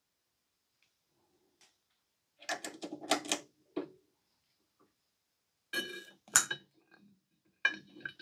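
Scattered clicks and rattles of a test-lead probe being handled against the anode cap of an open CRT monitor. The clicks begin about two and a half seconds in and come in short irregular clusters.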